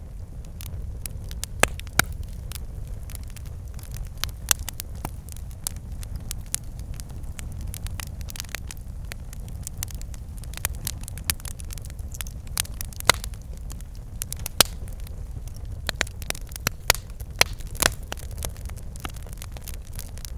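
Campfire burning with a steady low rumble and irregular sharp crackles and pops from the burning wood, a few louder pops standing out.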